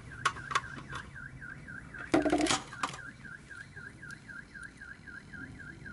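Ring-light and mount parts being handled: sharp clicks in the first second and a louder, brief squeaky scrape about two seconds in. Behind them runs a faint warbling electronic tone that wavers about four times a second, like a distant alarm.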